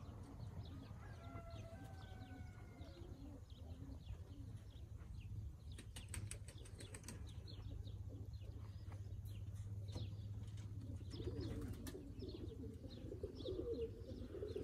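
Birmingham roller pigeons: wings flapping and low cooing, the cooing growing stronger near the end. There is a short run of sharp clicks about six seconds in.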